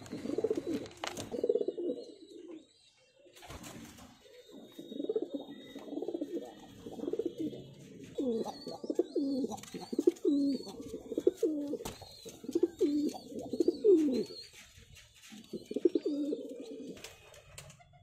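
Domestic pigeons cooing, call after call in several runs, with a short lull a few seconds in.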